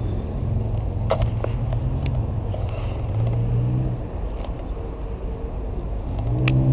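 Low, steady motor-vehicle rumble and engine hum, swelling briefly a few seconds in and louder near the end as a vehicle passes. A few sharp clicks sound over it as a baitcasting reel is handled.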